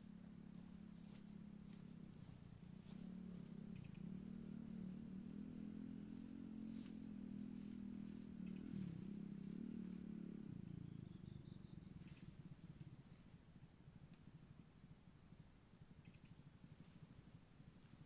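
Insects shrilling steadily in high, thin tones, with short groups of three or four quick chirps repeating every few seconds, over a faint low rumble.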